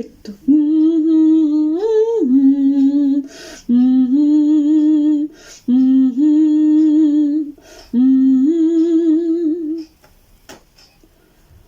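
A woman humming the melody without words in four long held notes, the second bending briefly upward. The humming stops about ten seconds in.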